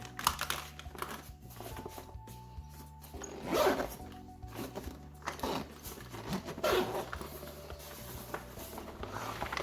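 Backpack zipper being pulled in several short strokes, over background music.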